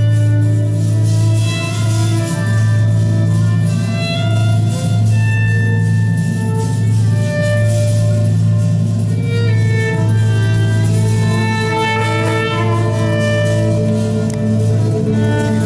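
Live chamber ensemble music: two violins play a melody over a steady low note, and a trumpet joins in the second half.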